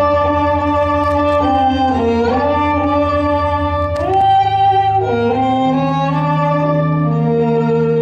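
Live band instrumental passage led by bowed strings, cello and violin, holding sustained chords that slide in pitch between changes, over a low pulsing bass note that drops out about halfway through.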